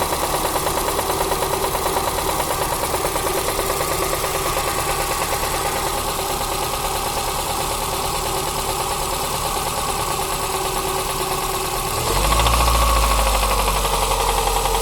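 Toyota 5E-FHE 1.5-litre four-cylinder petrol engine running with a steady, rhythmic knock, which the owner takes for a connecting-rod knock. About twelve seconds in the engine note changes and gets louder, with more low end.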